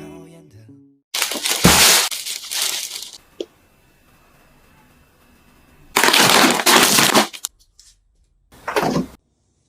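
Crackling plastic food packaging being handled in three loud bursts, with a single short click after the first. Faint background music fades out at the start.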